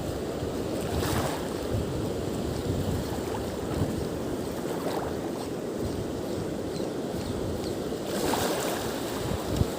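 Steady rush of wind and water noise, heaviest in the low range, with brief stronger gusts about a second in and near the end.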